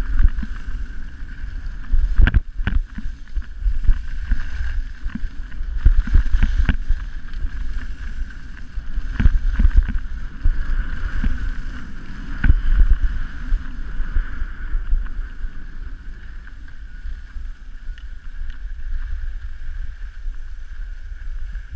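Wind buffeting a GoPro camera's microphone and skis scraping over packed snow during a downhill ski run. The sound eases and quietens over the last several seconds as the skier slows.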